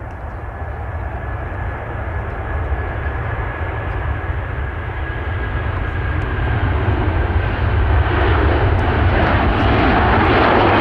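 Airbus A330 jet airliner's Rolls-Royce Trent 700 engines at take-off power during the take-off roll and lift-off, growing steadily louder. A thin steady whine fades about six seconds in, and the noise peaks in the last few seconds as the aircraft climbs past.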